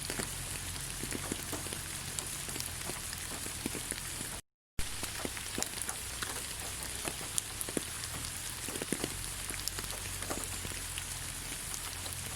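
Steady rain falling on leaves: an even hiss with many separate drops tapping. The sound cuts out completely for a fraction of a second about four and a half seconds in.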